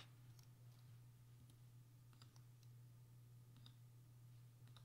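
Near silence: a few faint computer mouse clicks, scattered and irregular, over a steady low hum.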